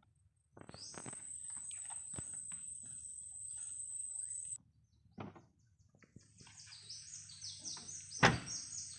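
Woodland ambience: a steady high-pitched insect drone and bird chirps, with scattered small clicks and rustles. A single sharp crack about eight seconds in is the loudest sound.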